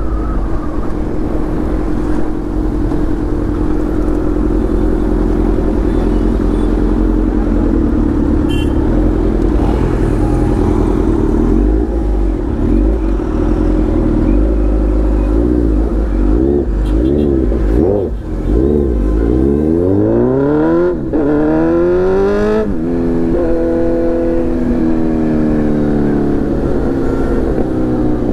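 Kawasaki Z900's inline-four engine through a full titanium Arrow exhaust while riding: a steady cruise at first, then about halfway in the revs rise and fall repeatedly, with several quick rising pulls.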